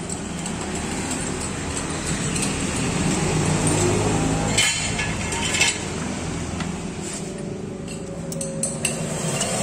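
Metal clinks and clicks of hand tools being handled in a car's engine bay during spark-plug fitting, with a cluster about halfway through and a few more near the end, over a steady low background hum.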